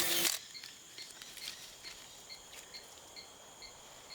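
Rainforest insects: a steady high buzz with a chirp repeating about twice a second. A brief loud, noisy burst sounds at the very start.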